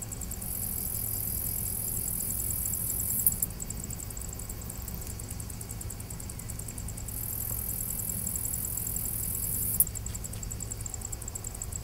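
Insects chirring with a high, very fast pulsing song in two bursts of a few seconds, each cutting off abruptly, over a steady low rumble.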